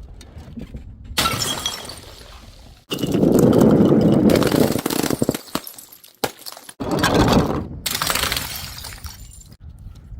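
Glass bottles smashing and shattering, several breaks one after another. The loudest break comes about three seconds in, another about seven seconds in.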